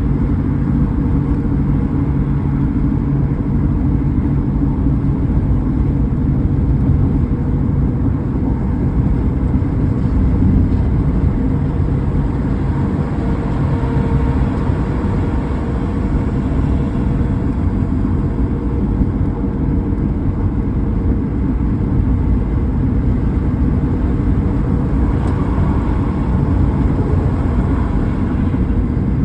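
A car driving at a steady pace: constant low tyre and engine noise with no sudden events.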